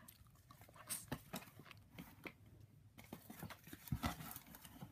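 Cardboard shoebox being handled: scattered light taps, clicks and scrapes, with a couple of sharper knocks about a second in and near the end.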